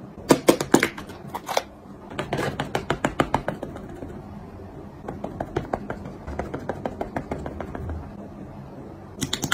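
A makeup puff patting foundation onto the face in quick, soft taps, several a second. A few louder clicks come near the start and again near the end.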